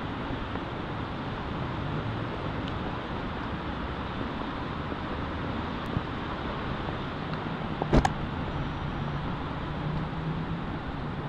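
Steady city traffic noise with a faint low hum underneath, and a single sharp knock about eight seconds in.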